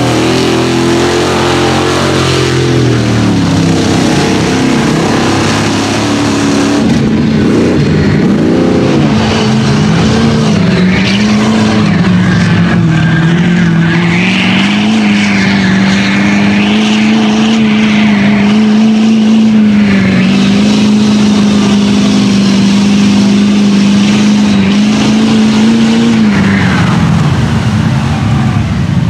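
Mud truck engines running hard at high revs through a mud pit. In the first seconds an engine's pitch falls off and rises again. From about ten seconds a mega mud truck's engine holds high revs with a wavering pitch, then drops near the end.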